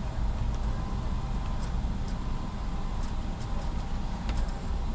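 Car engine idling: a steady low rumble, with a few faint clicks over it.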